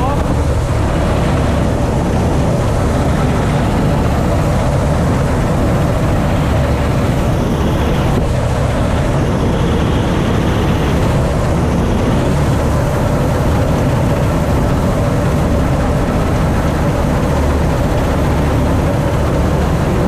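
Massey Ferguson 86 combine harvester running steadily while cutting wheat: a continuous drone of the engine and the cutting and threshing works, heard from the open driver's seat.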